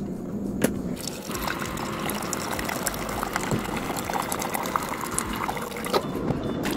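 Keurig Duo coffee maker brewing a single cup: a click about half a second in, then the pump running and hot coffee streaming steadily into a ceramic mug. The machine is pumping a full flow again after calcium buildup was flushed from the reservoir inlet.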